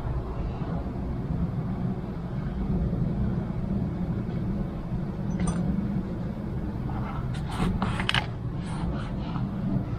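A steady low hum, with a few light clicks and taps in the last few seconds as small items are handled on a watercolor palette.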